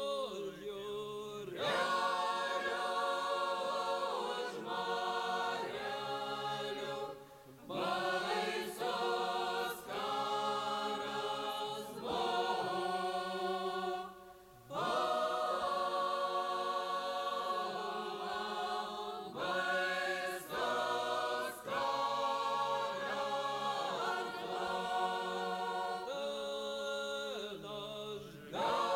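A group of voices singing a Lithuanian folk song together in long held phrases, with short breaks between phrases every few seconds.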